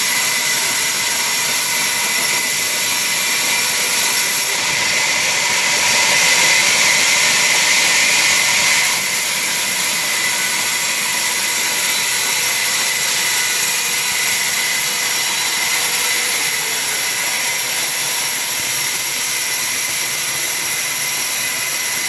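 Large sawmill band saw running and ripping a log lengthwise: a steady, loud mechanical noise with a high whine. It gets louder and brighter for a few seconds from about four and a half seconds in, then settles back.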